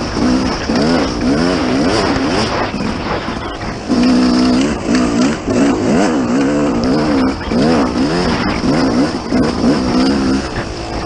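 Dirt bike engine heard up close from an onboard camera, its pitch climbing and dropping again and again as the rider works the throttle and shifts gears at speed.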